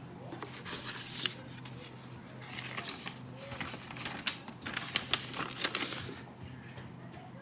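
Paper rustling and crinkling in irregular bursts with a few sharp clicks, as a folded letter is taken out and unfolded by hand.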